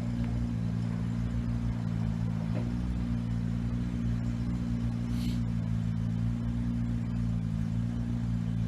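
Diesel train engine idling steadily, a constant low hum with even low tones and rumble.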